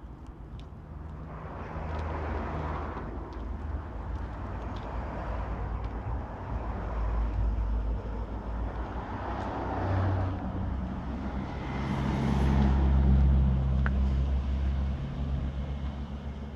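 Motor traffic passing on a nearby road: a continuous low engine hum with swells of engine and tyre noise as vehicles go by, loudest near the end.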